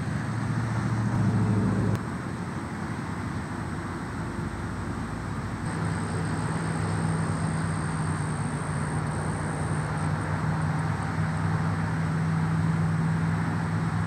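Road traffic noise: a steady hum of motor vehicles, with a low engine drone that sets in about six seconds in and holds steady.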